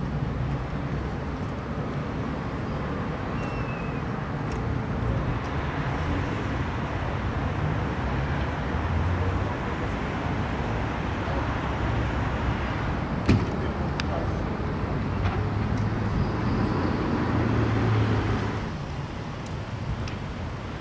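Low motor-vehicle rumble that swells a few times and drops off near the end, with one sharp click about two thirds of the way through.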